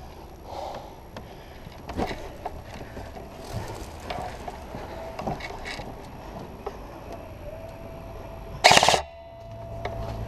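Airsoft guns firing during a game: scattered sharp pops and clicks, then a loud short burst of rapid fire near the end.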